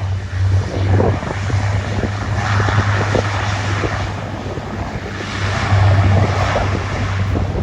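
Strong gusty wind buffeting the microphone, with the noise of a jet airliner's engines swelling twice behind it.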